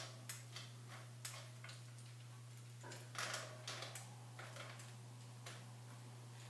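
Faint, irregular metallic clicks and ticks as a bicycle quick-release skewer nut is turned by hand onto the rear axle, over a steady low hum.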